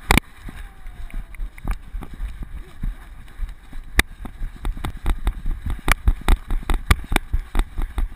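Action camera strapped to a dog's harness, jostled as the dog moves: a run of irregular knocks and thuds with low rumble, coming faster after about five seconds.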